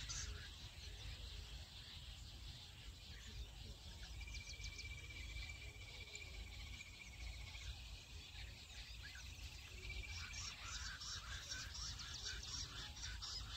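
Jungle bush quail calling in rapid, high chattering notes that fade after the start and come back strongly about ten seconds in. A thin, high trill runs for a few seconds in the quiet middle, over a low rumble throughout.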